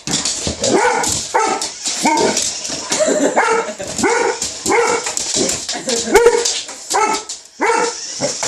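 A dog barking over and over at a remote-control car, about one to two barks a second, with some higher yips among them.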